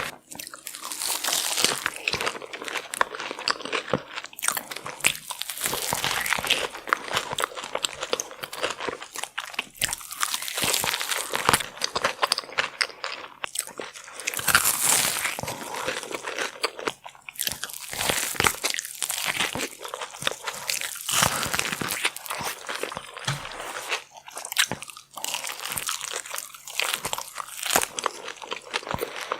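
A person eating seafood boil with sauce, biting, crunching and chewing in a dense, irregular stream of crackles and wet clicks.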